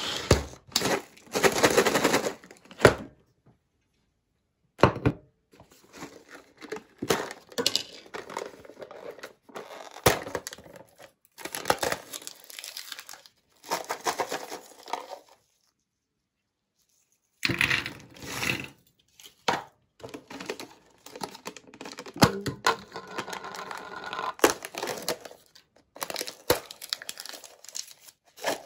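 A foil-sealed plastic snack cup being torn open and crinkled, then small hard biscuits rattling and clicking as they are tipped out into a hand and onto a plate, in irregular bursts with two short silent gaps.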